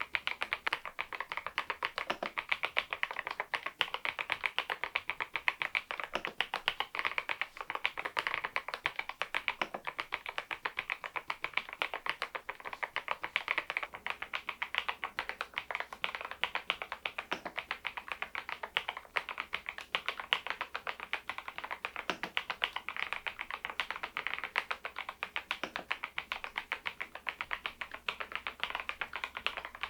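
Machenike K500 PRO mechanical keyboard fitted with Adelie V2 switches, typed on continuously in a steady stream of key clicks.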